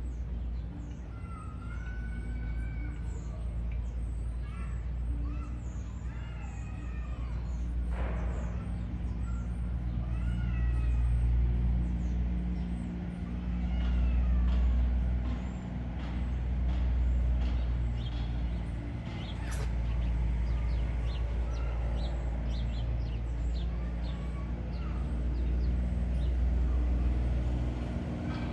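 Steady low rumble with birds chirping and giving short whistled calls over it, and one short sharp sound about eight seconds in.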